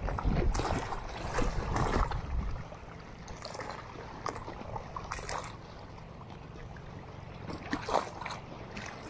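Water splashing and sloshing around a small boat, with a few short splashes or knocks spaced a second or two apart. Wind rumbles on the microphone for the first two and a half seconds, then drops away.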